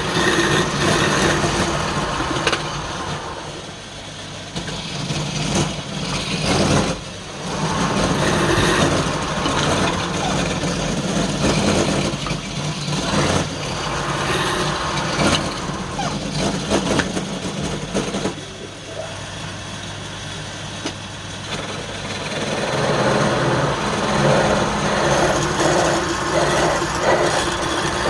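Wood lathe running, with a tool or abrasive rubbing on the turning wood. The sound eases off and picks up again a few times.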